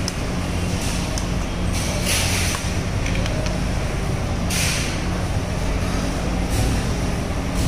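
A steady low mechanical hum, with two short hissing bursts about two seconds and four and a half seconds in.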